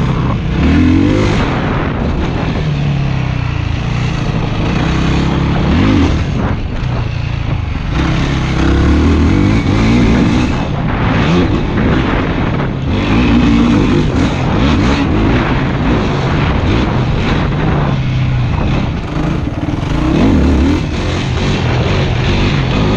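Yamaha YFZ450 quad's single-cylinder four-stroke engine being ridden hard, revving up and falling back again and again as the rider opens and closes the throttle, with short dips off the throttle between runs.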